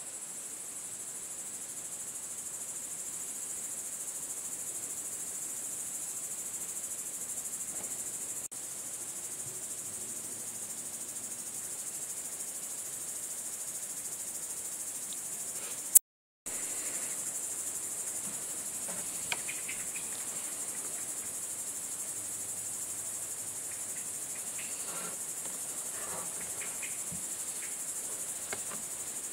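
Steady, high-pitched chorus of crickets chirring at dusk. About halfway through there is a single sharp click followed by a brief total dropout, and a few faint clicks come in the later part.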